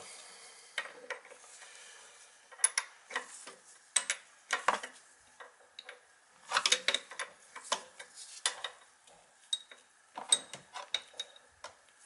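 Irregular metallic clinks, taps and short scrapes: a wrench and copper bleed tube being worked at an oil burner's fuel pump bleed port over a plastic catch jug, while the pump's oil flow is checked.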